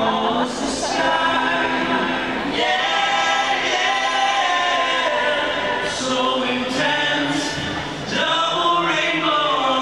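A large arena crowd singing together, many voices holding long sung notes.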